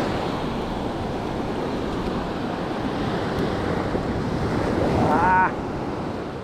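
Surf breaking steadily on the beach, with wind buffeting the microphone. About five seconds in, one short high rising call stands out briefly.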